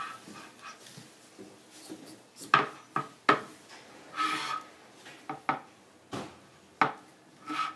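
Handling clatter of a metal dental articulator and stone dental casts: a string of sharp clicks and knocks, with a few short scrapes and squeaks as the articulator is turned over and set down on the stand.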